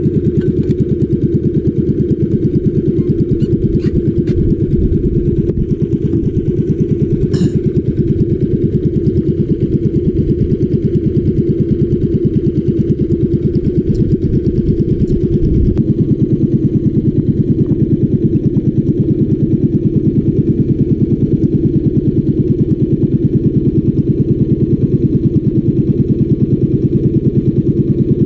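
A small boat's engine running steadily at trolling speed, with a slight change in its low note about sixteen seconds in.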